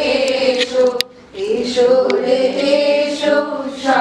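A group of mostly female adult voices singing a Bengali children's action song together, unaccompanied. The singing breaks off briefly about a second in.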